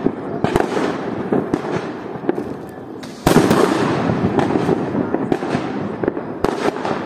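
Diwali firecrackers going off, sharp bangs near and far in quick, irregular succession. About three seconds in, a louder, dense crackle begins and carries on.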